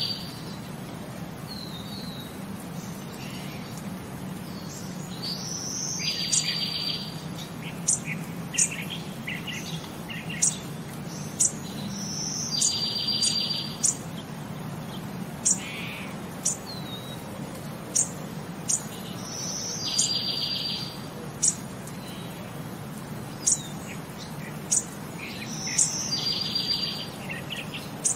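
Birdsong from a looped recording: short high chirps every second or two, and a buzzy trill that comes back about every six and a half seconds, over a low steady hum.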